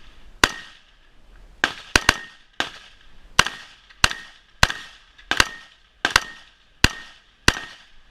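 A string of about eleven gunshots fired at a steady pace, roughly one every two-thirds of a second, each with a short ringing tail.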